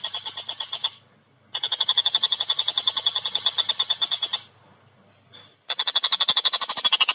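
Tengkek buto kingfisher calling a fast, shrill chatter of about ten notes a second. It comes in three runs, with brief pauses about a second in and again around the middle.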